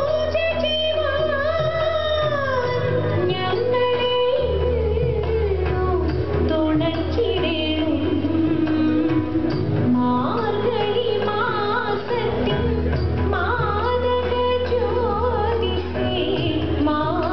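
Thiruvathira song: a woman's voice singing a flowing, ornamented melody with steady instrumental accompaniment, music for the Kerala Thiruvathirakali group dance.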